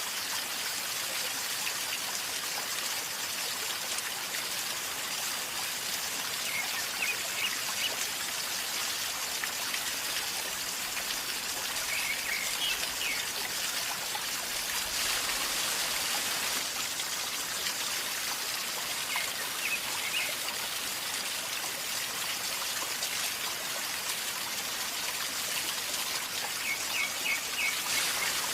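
River water flowing and gurgling steadily over stones. A bird chirps briefly and high a few times above the water.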